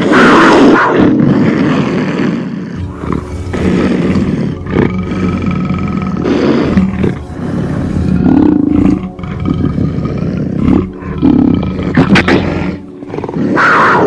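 A big cat roaring over and over: a run of loud, rough roars of varying length with short breaks between them, offered as the call of a black panther.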